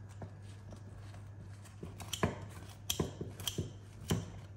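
Kitchen scissors cutting through baked focaccia on a plastic cutting board: a string of irregular snips and clicks, sparse at first and closer together and louder in the second half.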